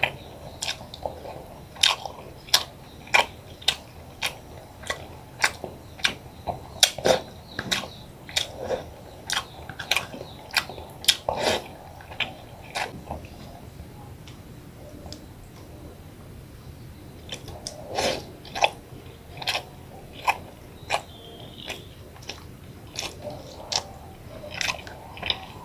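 Close-miked chewing and mouth smacking while eating white rice with boiled eggplant and vegetables: a run of sharp, wet mouth clicks about one or two a second, dropping off for a few seconds midway.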